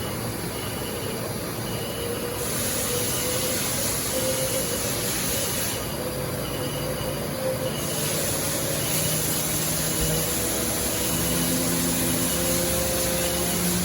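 The 15,000 RPM CAT 40 spindle of a Haas VF-5/40 vertical machining center spinning up, a steady whine and hum over hiss whose pitch steps up a few times, most clearly about eleven seconds in, as the commanded speed is raised.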